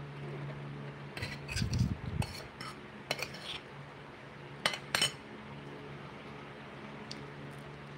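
Metal utensil clinking and scraping against a cooking pot in short bursts, the loudest two sharp clinks about five seconds in, over the steady hum of an electric fan.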